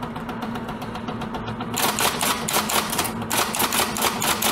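Typewriter key clacks as a sound effect, a quick even run of strikes that grows louder from about two seconds in.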